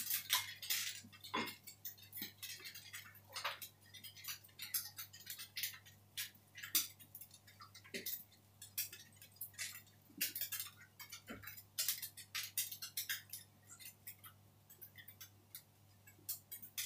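Scattered light clicks and crackles of baked chicken being torn apart by hand, with a few soft knocks, over a faint steady low hum.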